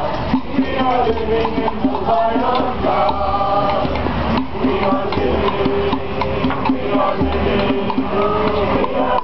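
A group of marchers singing together, with percussion struck along with the song.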